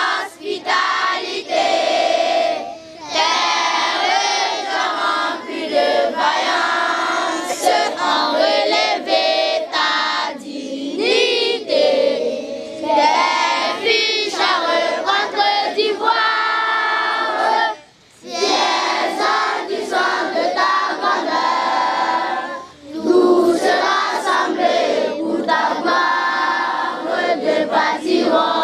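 Large group of schoolchildren singing together in chorus, loud and sustained, with short breaks between phrases about 3, 18 and 23 seconds in.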